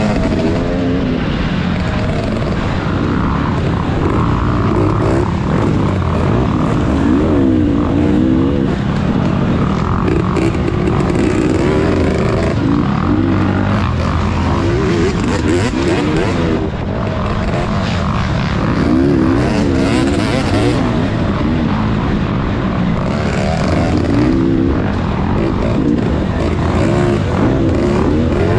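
Off-road dirt bike engine heard close up from the rider's own bike, revving up and easing off over and over as the throttle is worked over rough trail.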